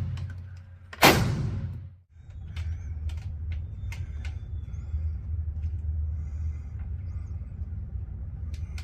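A single gunshot about a second in, its report dying away over roughly a second. Then a steady low rumble with scattered small clicks and knocks.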